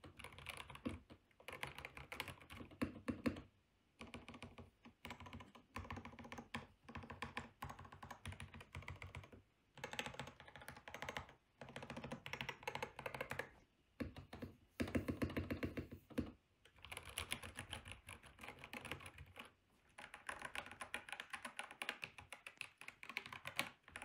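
Typing sound test on a NovelKeys NK87 TKL mechanical keyboard with silk yellow linear switches in a hot-swap PCB, dampening pads between plate and PCB, and PBT dye-sub keycaps. The keystrokes come in runs of a few seconds with short pauses between them, and the whole test is fairly faint.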